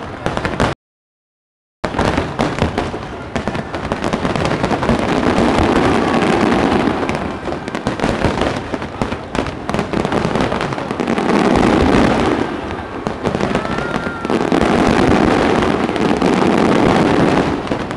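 Fireworks display finale: a dense, continuous barrage of bursting shells, crackling and banging with no let-up, swelling louder three times. The sound cuts out completely for about a second near the start.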